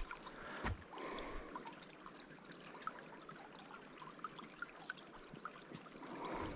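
Small spring-fed creek trickling and running steadily, with one knock near the start.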